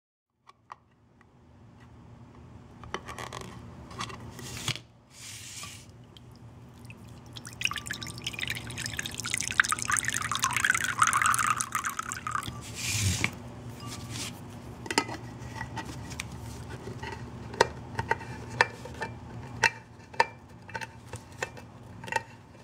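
Water from a can of artichokes pouring into a ceramic bowl for several seconds, then the can-opener blade of a Sanrenmu 7056 folding knife working around the tin lid in a series of sharp metal clicks, slowly. Some scraping of metal on the can comes before the pour.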